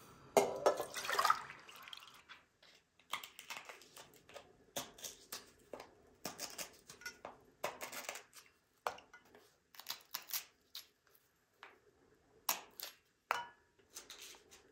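Dry yellow split peas poured into a ceramic bowl, a loud rattling rush for about a second and a half. Then a fork piercing the brittle shells of dried limes, a long irregular string of short sharp clicks and cracks.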